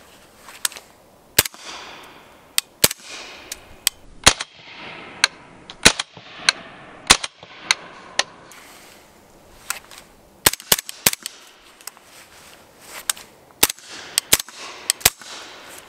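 Suppressed 300 Blackout rifle with a Q Trash Panda titanium suppressor firing 220-grain Arms Core subsonic rounds: about twenty sharp shots in two strings, with a pause of about two seconds in the middle, each followed by a short echo. It is quiet enough for the shooter to fire with his ear protection off.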